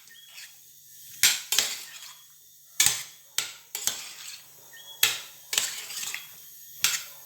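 A spoon stirring seasoned chopped cow kidney in a bowl, knocking against the bowl in a series of irregular clinks.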